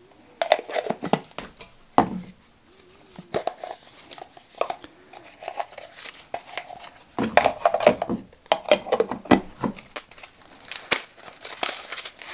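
Plastic insulated camp cups and their lids clacking and knocking as they are lifted out of a nested stainless steel cookset, fitted together and set down on a wooden board. There are clusters of sharp clicks, with a rustle near the end.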